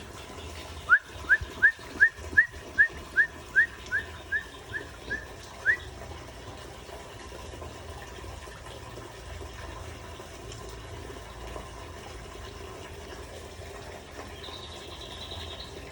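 A caged songbird giving a run of about thirteen short, upward-sliding whistled notes, a little over two a second, fading slightly before a last louder one. Faint high twittering follows near the end.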